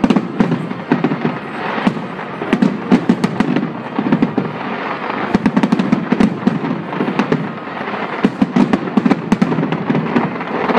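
Aerial firework shells bursting in a dense barrage: many sharp bangs a second, overlapping, over a continuous crackling din.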